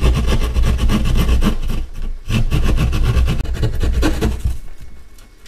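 A handheld power tool cutting an opening in drywall for a cable: a steady low hum with a rapid run of strokes. It dips briefly about two seconds in and stops shortly before the end.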